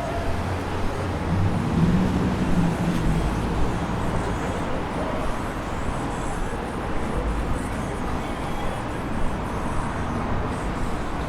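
City street traffic: the steady noise of passing cars, with a low engine hum swelling from about one and a half to three seconds in as a vehicle goes by.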